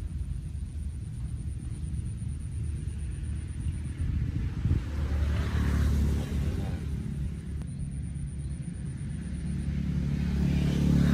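A motor engine running with a low rumble, growing louder and fading as it passes, about halfway through and again near the end.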